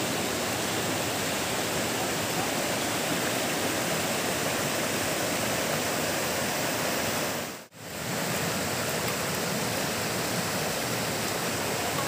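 Shallow rocky stream rushing over boulders in small rapids: a steady rush of water that drops out for a moment about eight seconds in.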